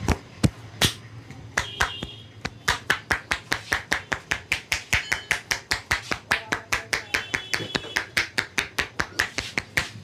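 Rapid, rhythmic percussive massage strokes, the barber's hands striking the head or body in quick succession, about four or five strikes a second after a few slower ones at the start.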